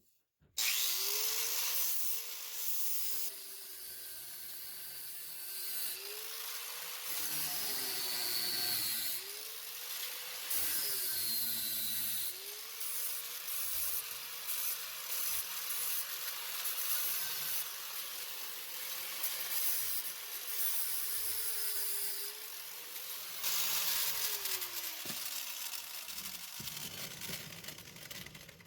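Electric grinder running and cleaning up a broken metal mower-deck gauge wheel arm in preparation for welding. Its motor tone sags in pitch several times as it is pressed against the metal and comes back up when eased off, over a steady grinding hiss.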